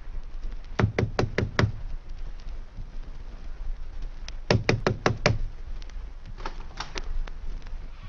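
Two quick runs of five sharp knocks, about a second in and again about four and a half seconds in, with a few fainter knocks after, over a steady low hum.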